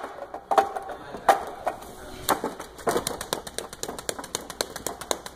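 Hands and forearms striking the wooden arms of a Wing Chun wooden dummy (mook jong): sharp wooden knocks, a few spaced strikes at first, then from about halfway a fast run of lighter taps, several a second.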